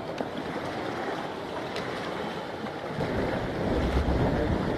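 Wind and sea noise, the wind buffeting the microphone more heavily from about three seconds in.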